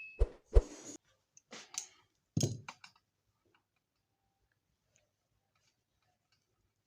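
Several sharp clicks and knocks of small hard parts being handled in the first three seconds, then only faint ticks.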